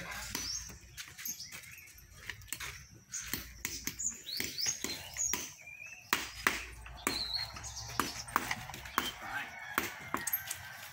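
Irregular sharp knocks and taps of timber from workers fitting wooden formwork boards and braces around concrete columns. Small birds chirp now and then in short rising calls.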